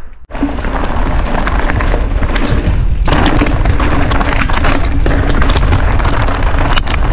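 Mountain bike riding over a rocky dirt trail: tyres crunching over loose stones, with a dense run of knocks and rattles from the bike over the bumps and heavy wind buffeting on the microphone. The noise begins abruptly a moment in and stays loud.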